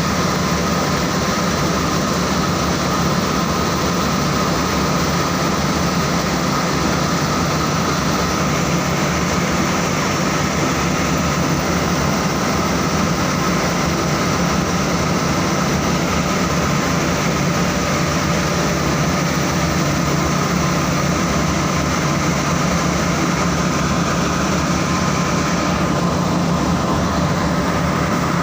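Saurer JSC 330 carding machine running steadily: a continuous, even machine noise with a held high whine and a low hum. The upper hiss eases slightly near the end.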